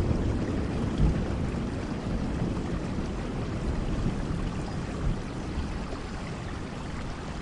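Steady rain falling, with a low roll of thunder dying away over the first seconds.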